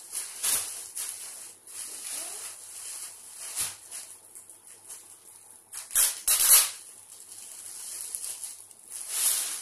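Thin clear plastic packaging bag crinkling and rustling as it is handled and pulled off a backpack, in irregular bursts with the loudest crackles around six seconds in and again near the end.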